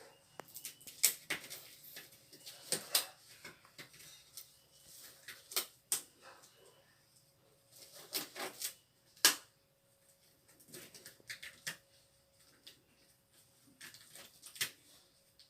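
Irregular clicks, knocks and rustling as small pieces of equipment are handled and set down, with a few sharper knocks among quieter fumbling.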